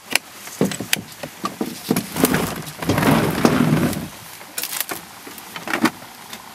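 Irregular knocks and bumps of a landing net and gear against the boat's side as a hooked carp is played up to the net, with a louder rough scraping stretch between about two and four seconds in.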